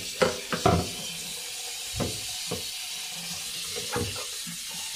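Tap water running into a sink while plastic vacuum cleaner parts are washed under it, with a few short knocks as the parts are handled.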